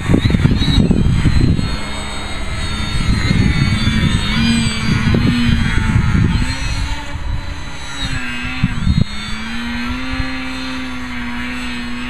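Electric RC foam plane's Turnigy EMP 3542 1250Kv brushless motor driving a 12x6 propeller, whining with its pitch wavering up and down, then holding steady near the end. Gusty wind buffets the microphone with a heavy rumble through roughly the first half.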